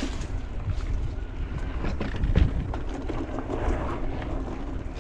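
Wind buffeting the camera microphone over the rumble of an electric mountain bike's tyres rolling fast over a dirt trail, with frequent short rattles and knocks as it hits bumps; the sharpest knock comes about two and a half seconds in.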